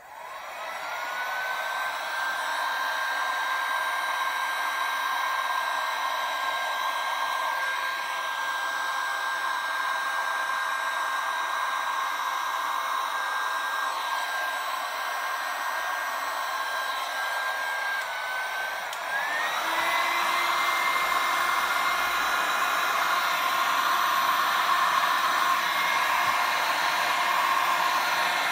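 Electric heat gun running, blowing hot air over wet resin: a steady motor whine that spins up at the start, then shifts to a higher pitch and gets a little louder about two-thirds of the way through.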